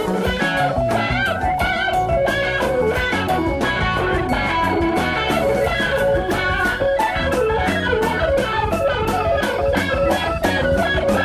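Gospel band's instrumental break between sung verses: electric guitar playing over a steady drum beat.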